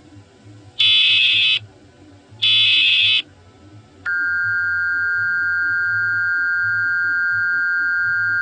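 Emergency Alert System broadcast tones: the last two of three short, buzzy SAME data header bursts, each under a second and about a second apart. About four seconds in, the steady two-tone attention signal starts and holds.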